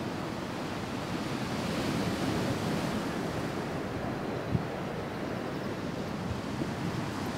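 Steady rushing noise of wind and distant sea surf, swelling a little about two to three seconds in, with a brief knock just past the middle.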